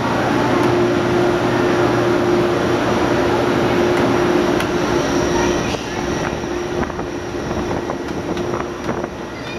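Steady mechanical whir with a constant hum, dropping about five and a half seconds in to a quieter indoor background with a few light clicks.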